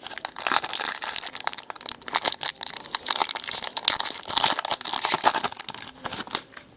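Foil wrapper of a Topps Platinum trading-card pack crinkling and tearing as it is ripped open and handled, a dense irregular crackle that stops shortly before the end.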